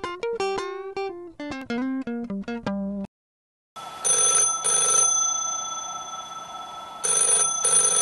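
A plucked guitar melody that stops about three seconds in. After a short gap, a rotary desk telephone's bell rings in two pairs of short bursts.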